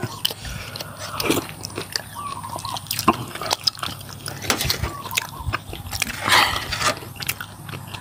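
Close-up eating sounds: chewing and biting into beef noodle soup and meatballs, with light clicks of a metal spoon against the bowl scattered throughout, and a louder noisy sound about six seconds in.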